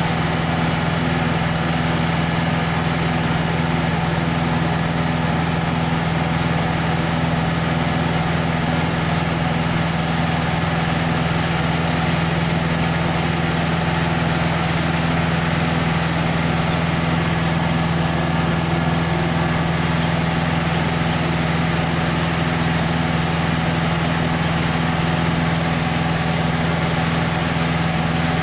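Diesel engine of a self-loading concrete mixer running at a steady speed, a constant low hum that does not change.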